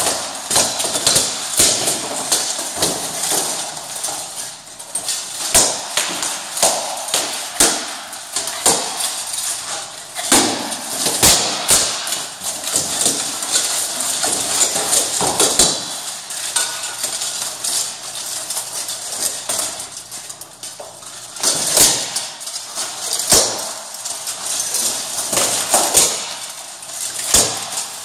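Plate-armoured fighters sparring: repeated sharp metallic clanks of weapons striking armour and a shield, with armour rattling as they move. The blows come in quick flurries through the first half, then a few single loud strikes near the end.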